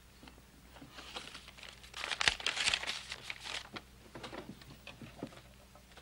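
Paper banknotes rustling and crinkling as they are handled, with clicks and a sharp knock from a metal cash box being opened; the busiest, loudest stretch comes about two to three and a half seconds in.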